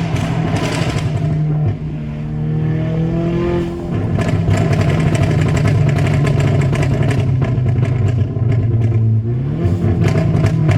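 Volkswagen MK6 GTI's turbocharged 2.0-litre four-cylinder running, with a fast, irregular string of exhaust pops and crackles from about four seconds in, programmed in by its Stratified tune. The revs rise near the end.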